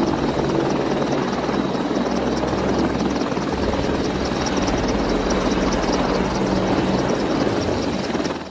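Helicopter running: steady rotor chop over dense turbine and rotor noise, dropping away suddenly near the end.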